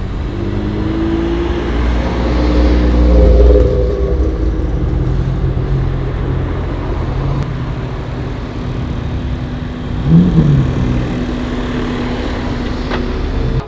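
Car engine running and revving, climbing in pitch and loudness over the first few seconds, then running steadier, with a brief rev up and down about ten seconds in.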